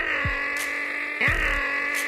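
A man imitating a chainsaw's pull-start with his voice, a pair of quick falling 'brrr' noises that repeat about every second and a bit over steady background music.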